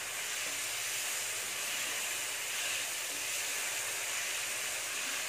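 Vegetable strips of carrot, beans and capsicum sizzling steadily as they stir-fry in a hot nonstick kadai.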